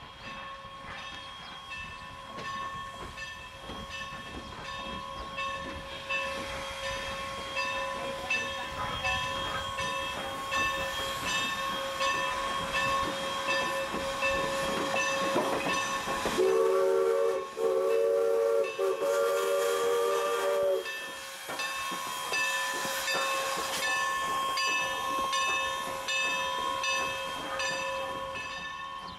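1906 Norfolk & Western 4-8-0 steam locomotive moving slowly, with steam hiss and a steady, regularly struck ringing. About halfway through its chime steam whistle sounds a chord of several notes in three blasts, the last the longest.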